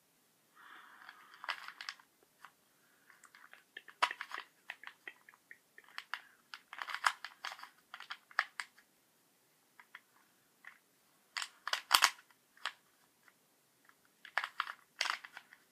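Plastic Rubik's cube being twisted by hand: irregular flurries of clicks and clacks as the layers turn, with short pauses between, the loudest about twelve seconds in.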